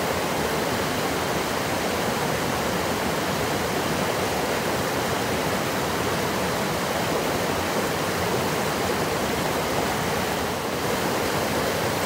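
Mountain creek rushing over rocks and tumbling down small cascades: a steady, even rush of white water.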